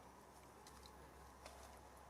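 Near silence: faint background hum with two faint clicks, about a second apart.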